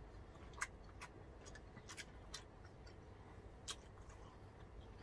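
Faint eating sounds close to the microphone: a few short, sharp mouth clicks and smacks, the clearest about half a second, two seconds and nearly four seconds in, over a low steady room hum.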